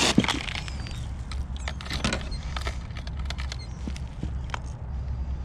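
Rummaging through a tackle bag: a plastic compartment tackle box and lures clicking and rattling in short, scattered clicks, the sharpest just after the start, over a steady low rumble.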